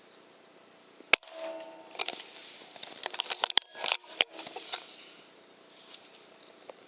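A single shot from a .22 Weihrauch HW100KT pre-charged air rifle, a sharp crack about a second in, followed by a few seconds of scattered clicks and scuffling with another sharp click near the middle.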